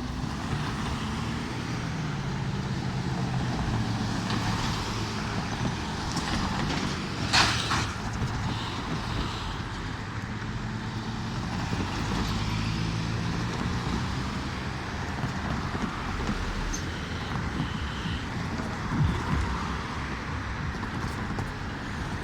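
Amtrak passenger train passing at speed: a steady rumble of wheels on rail with a low engine hum, and a sharp clank about seven seconds in.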